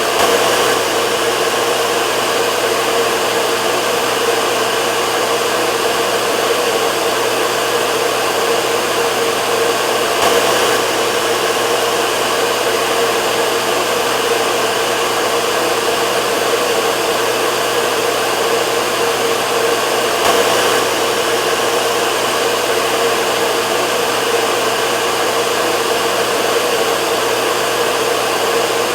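Hair dryer running steadily: a continuous whoosh of air with a constant motor hum.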